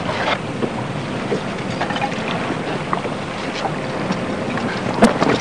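Steady rush of wind and water around a small boat, with a few light knocks and a sharper knock near the end.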